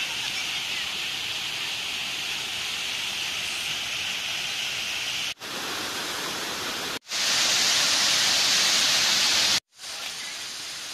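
Stream water rushing over a concrete weir, a steady hiss. It breaks off briefly three times, is louder and brighter for a few seconds after the second break, and is fainter near the end.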